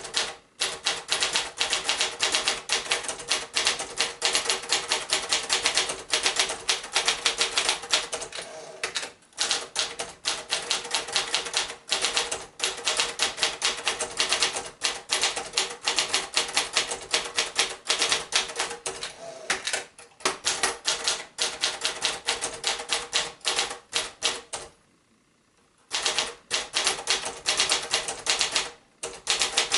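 A 1977 Escort 350 lightweight manual typewriter with Brother JP-7 works being typed on fast: a quick, uneven run of key strikes. The strikes stop a few times, once for about a second about five-sixths of the way through.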